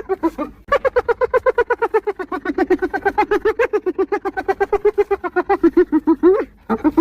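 Spotted hyena giggling: a long run of rapid, evenly spaced yelping notes, about nine a second, starting just under a second in after a short pause and breaking off briefly near the end.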